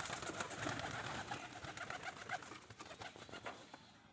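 Domestic pigeons: a rapid clatter of wingbeats as one flies, thinning out after the first second or so, with cooing from the flock.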